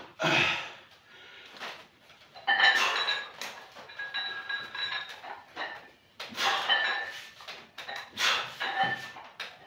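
Lying barbell triceps extension set: a noisy burst as the bar comes up, then each rep brings hard breaths mixed with short, squeaky high notes, in clusters every two to three seconds.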